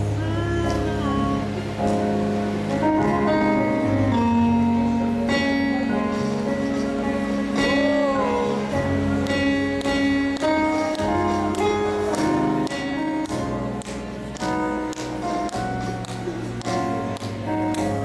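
Live gospel worship band playing slow instrumental music: held chords over a bass line, with guitar and light cymbal ticks.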